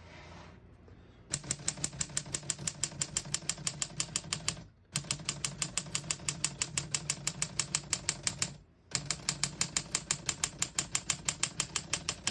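1952 Underwood Leader manual portable typewriter being typed: rapid, even keystrokes, about nine a second, in three runs of a few seconds each with short pauses between. The typing is carried across the line toward the right margin.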